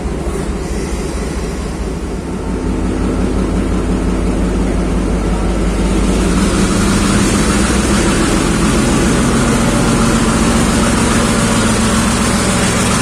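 Diesel locomotive engine running as the locomotive pulls in alongside the platform. It grows louder over the first few seconds, then holds a steady low hum.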